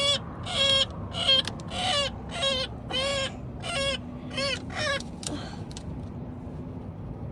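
A trapped pileated woodpecker calling over and over in distress, short loud notes about every half second, which stop about five seconds in.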